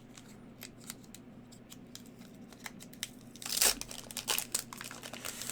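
Pokémon booster pack's foil wrapper being handled with faint crinkles, then torn open with a sudden loud rip about three and a half seconds in, followed by more crinkling of the wrapper.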